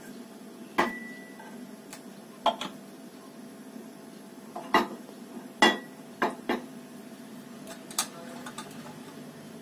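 Scattered clinks and knocks of kitchen utensils and containers, about seven in all, a couple of them ringing briefly, over a faint steady hum.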